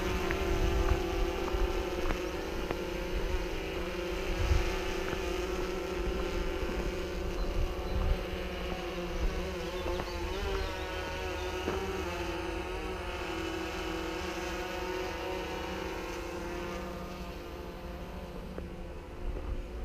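DJI Phantom 3 quadcopter's motors and propellers buzzing steadily in flight, a high multi-toned whine over a low rumble. Its pitch wavers a little midway, and the buzz grows fainter near the end as the drone moves away.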